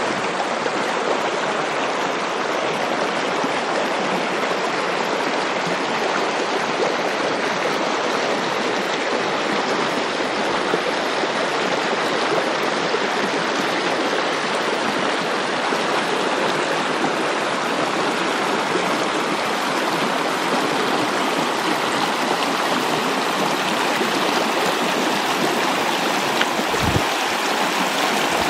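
Steady rush of water pouring from the lake over a low weir into a rocky channel.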